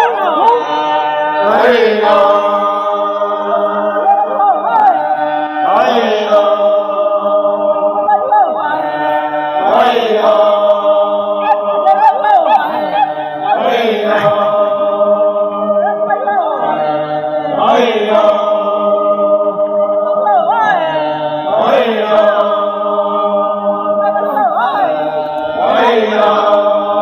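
A group of men's voices chanting a song together, on held notes over a steady low tone. A new phrase begins about every four seconds.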